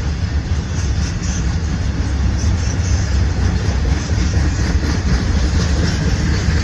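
Norfolk Southern freight train rolling past with a steady low rumble and wheel noise; no horn is sounding.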